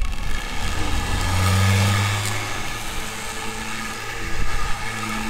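Corded electric random orbital sander switched on at the start and running steadily on a wooden board, a motor hum over an even sanding hiss.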